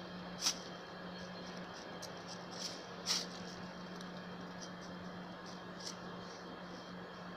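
A small dog nosing through frost-stiff grass and dry fallen leaves as it hunts for mice. There are a few short, sharp rustles: one about half a second in, another just after three seconds, and a fainter one near six seconds, over a faint steady hiss and low hum.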